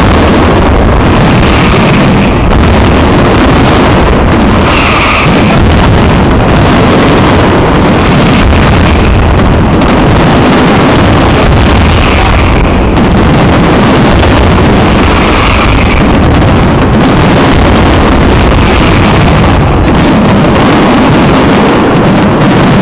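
Aerial firework shells bursting in a dense, continuous barrage, the explosions overlapping into one unbroken rumble so loud the recording is overloaded.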